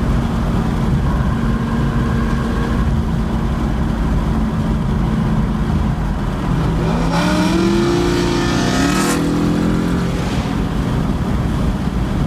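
Chevy SS's ported LS3 V8 with catless headers running at a steady cruise, then about seven seconds in accelerating hard, its pitch climbing in steps through upshifts for about three seconds before settling back.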